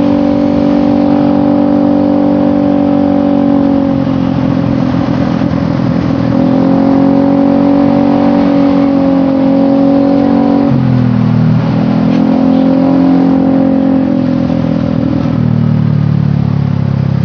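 Motorcycle engine running through an aftermarket trioval long-header exhaust, its steady note dropping in pitch and climbing back about three times.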